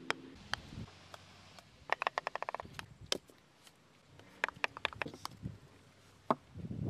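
Mini-golf putters striking balls: scattered sharp single clicks, with two short runs of rapid clicking about two and four and a half seconds in.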